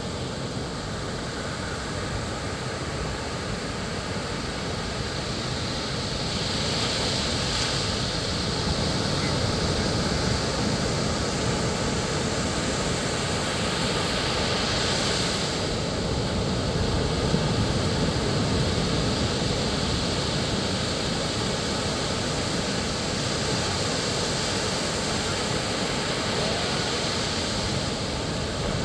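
Ocean surf washing onto a beach: a steady rushing noise that swells as waves break, most clearly about seven and fifteen seconds in.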